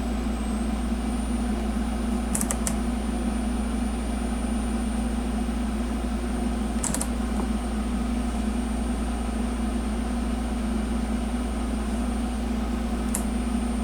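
A steady machine hum with a thin high whine that rises slightly in the first second and then holds, and a few brief faint clicks.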